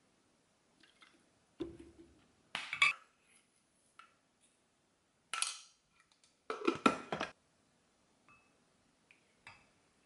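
Kitchen handling sounds: short knocks and clinks of a wooden spoon, a glass bowl and bottles and containers being picked up and set down while a sauce is measured into the bowl, in about four groups, the loudest about three seconds in and again about seven seconds in.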